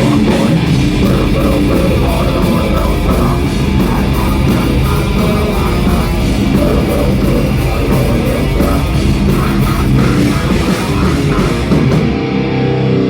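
Live heavy rock band playing loud with distorted electric guitars and a drum kit. Near the end the drums and cymbals stop, leaving a held guitar chord ringing.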